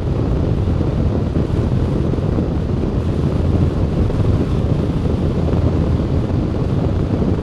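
Wind buffeting the microphone of a camera mounted on a moving motorcycle: a steady low rumble, with the bike's engine and tyre noise mixed in beneath it.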